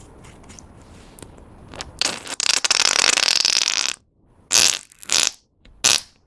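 Clear slime being squished and pressed by hand. There is a long squishing stretch of about two seconds that stops suddenly, then three short squishes.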